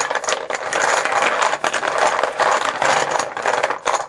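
A handful of small drawing chips shaken hard in a container, a dense continuous clattering rattle that stops abruptly at the end, as they are mixed before one is picked.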